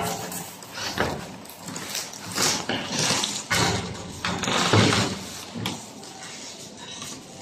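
Plastic bubble wrap rustling and crinkling as it is handled, in irregular bursts with a few light knocks.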